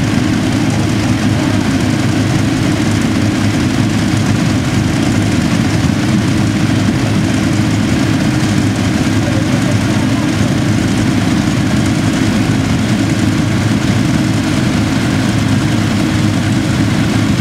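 A crowd of sports motorcycles idling together, a steady mixed engine sound with no single bike revving or standing out.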